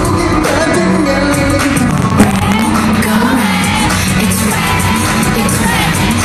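Live dance-pop performance: a male singer singing over a loud backing track.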